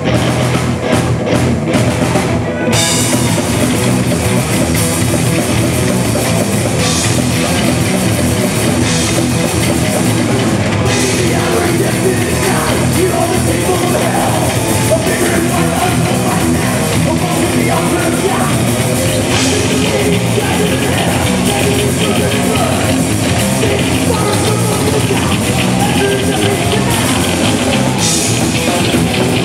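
Heavy metal band playing live: distorted electric guitars and a drum kit, loud and continuous.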